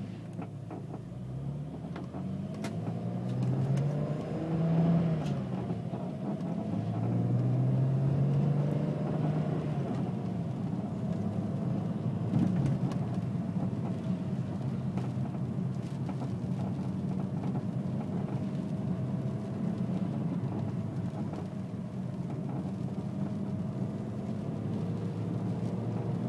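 BMW E46 M3 with its S54 straight-six engine running, its pitch rising and falling as the car moves, while short creaks and clicks come and go over it, mostly in the first half. These creaks are the intermittent creaking noise the owner wants diagnosed.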